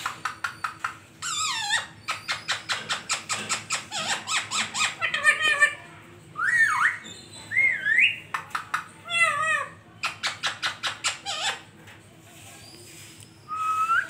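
Male rose-ringed parakeet (Indian ringneck) calling: runs of rapid sharp chirps at about five or six a second, a few wavering squawks, and two sweeping whistles mid-way. It goes quiet briefly near the end, then gives one short rising note.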